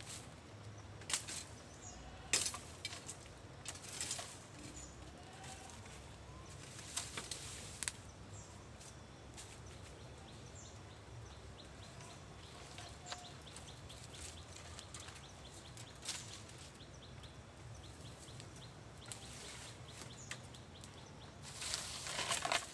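Dry bamboo leaves and twigs crackling and rustling as hands rummage through the leaf litter, in short scattered bursts with a louder run of crackles near the end.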